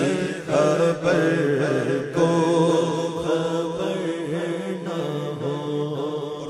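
Devotional naat chanting: a wordless sung melody in long, bending notes over a steady low drone.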